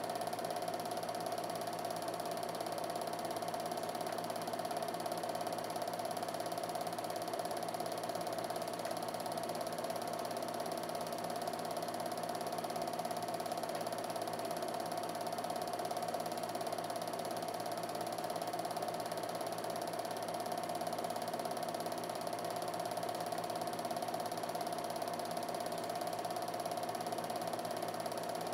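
Film projector running steadily, the even whirr and clatter of its motor and film-pulling mechanism.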